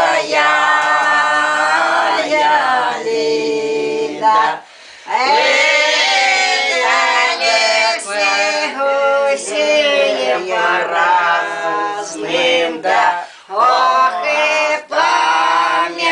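A small group of elderly Semeiskie Old Believer women singing a Russian folk song together, unaccompanied, with brief breaths between phrases.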